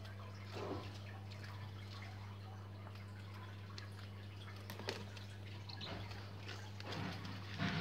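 Steady low electrical hum with scattered faint ticks and a few soft knocks.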